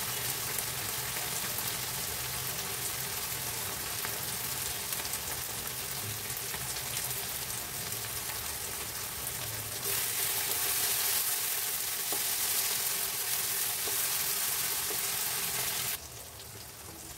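Sliced onions and chopped tomato frying in oil in a kadai, a steady sizzle. It grows louder about ten seconds in and drops abruptly near the end.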